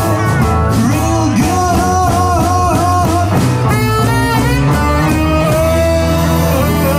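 Live rock and roll band playing, with singing and saxophone over guitar, piano, bass and drums; about five and a half seconds in the band settles into a long held chord.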